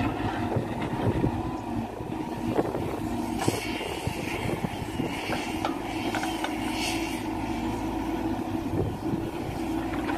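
Caterpillar 416F2 backhoe loader's diesel engine running steadily under load while the backhoe arm digs, with scattered knocks of stones and soil in the bucket and a hissing noise in the middle.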